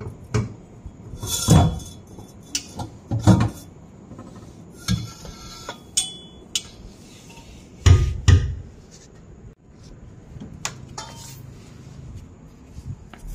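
Steel exhaust pipe of a Suzuki Alto clanking and knocking against the car's underside as it is wrenched loose by hand, with some scraping. The knocks are irregular, the loudest a pair about eight seconds in.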